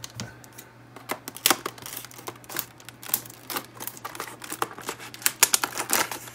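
Scissors snipping through a hard plastic clamshell blister pack: a run of irregular sharp clicks and plastic crinkling, several a second.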